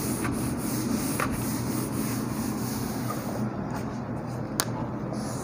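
Cloth rubbing across a whiteboard, wiping it clean, a steady scrubbing hiss that stops about three and a half seconds in, over a steady low hum. One sharp click about four and a half seconds in.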